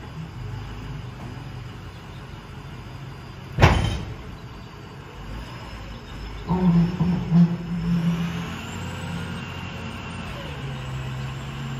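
Roll-off garbage truck's diesel engine running, with one sharp loud bang about four seconds in. The engine runs louder for a couple of seconds past the middle, then settles into a steady hum.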